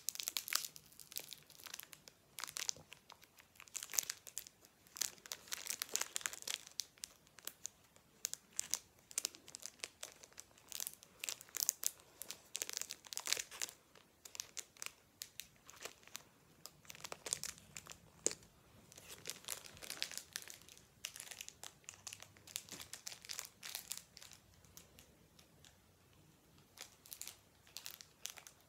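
Foil wrapper of a Pokémon card booster pack crinkling in irregular bursts as it is worked and picked at by hand: a stubborn pack that won't tear open.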